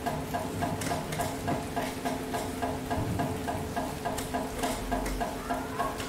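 Steady rain hiss with scattered sharp drop clicks. Over it runs a regular tick about four times a second, with a faint steady hum beneath.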